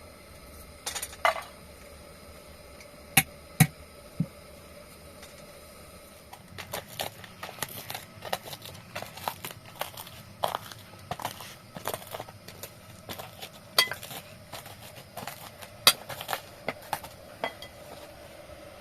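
Dishes and cutlery clinking and clattering: a few sharp knocks at first, then a busy run of small clinks from about six seconds in.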